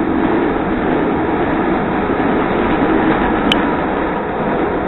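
Chicago Transit Authority (CTA) Red Line rapid-transit railcar running at speed, heard from inside the car: a steady rush of wheel and track noise. One brief sharp click comes about three and a half seconds in.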